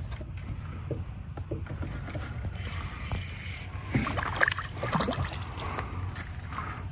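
A hooked crappie splashing at the lake surface as it is pulled up on the line, loudest a little past halfway. Under it runs a steady low rumble.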